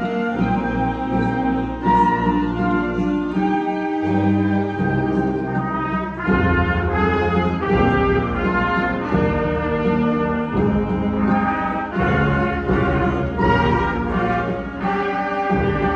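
A student ensemble playing a piece, with brass carrying the melody over held chords that change every second or so.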